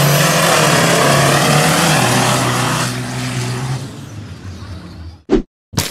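Diesel engine of a lifted rat-rod truck running hard under full throttle as the truck launches, blowing black smoke from its exhaust stacks, then fading as it pulls away. Near the end there is a short, sharp burst.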